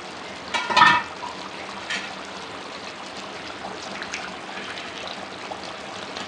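Chicken curry bubbling at a boil in a steel kadai, a steady hiss of simmering. A brief clatter about a second in is the loudest sound, and later come faint scrapes of a spoon stirring through the curry.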